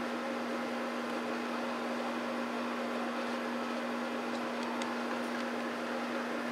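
A steady low hum over an even hiss, with a few faint ticks about four to five seconds in.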